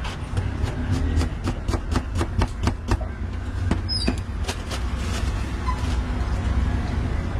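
A steady low rumble like street traffic, with a quick run of sharp clicks or taps, about four a second, over the first three seconds and a few more scattered clicks after.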